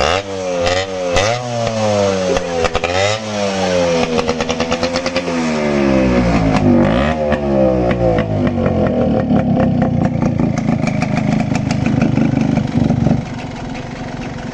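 Yamaha RX 135's two-stroke single-cylinder engine being revved several times in quick blips, its pitch rising and falling with each blip, then held at a steadier higher speed before dropping back near the end. Its silencer has an insert fitted inside, which the speaker says makes it sound like a sheep's bleat.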